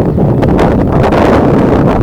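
Strong gusty wind buffeting the microphone: a loud, rumbling noise that swells and eases.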